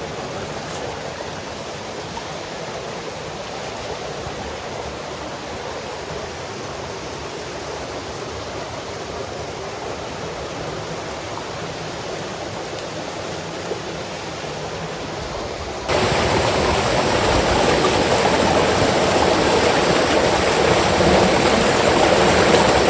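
Steady rushing hiss of heavy rain, stepping up suddenly to a louder, denser rush about sixteen seconds in.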